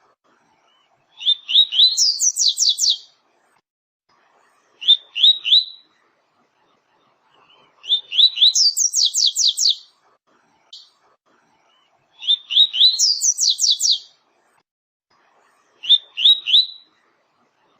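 Double-collared seedeater (coleiro / papa-capim) singing the 'tui-tui' song type: short phrases repeated every few seconds. Each phrase opens with a few rising notes and then a fast run of high whistled sweeps.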